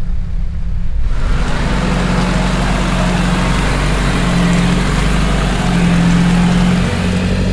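Nissan Patrol 4x4 engine running at a steady low drone as the vehicle crawls off-road. About a second in, an even rushing noise joins it as the vehicle pushes through spruce branches and undergrowth.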